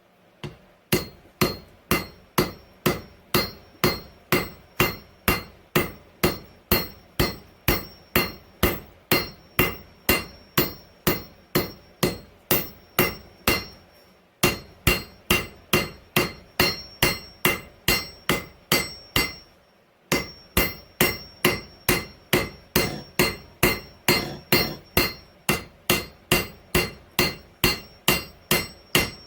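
Hand hammer striking steel on an anvil, about two blows a second, each with a high ringing note: forging an old file into a knife blade. The rhythm stops twice for a moment, about halfway and again a few seconds later.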